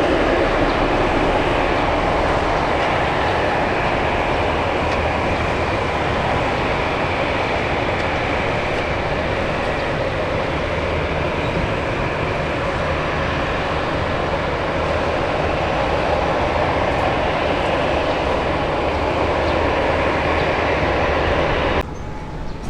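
Loud, steady roar of a jet aircraft's engines that holds level, then cuts off suddenly near the end.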